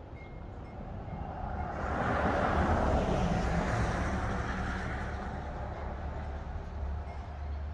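A vehicle passing on the highway: tyre and engine noise swells to a peak about three seconds in, then fades away, over a steady low hum.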